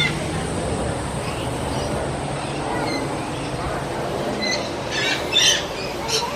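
Parrots squawking: a run of short, harsh squawks in quick succession in the second half, over a steady background murmur.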